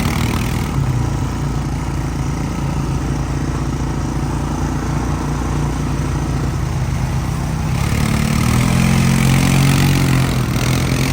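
Four-wheeler (ATV) engine running while riding, with a steady noisy rush over it. About eight seconds in the engine gets louder and its pitch rises as more throttle is given.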